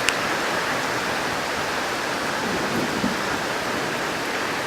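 Heavy rain pouring down in a steady, dense hiss, with one faint click just after the start.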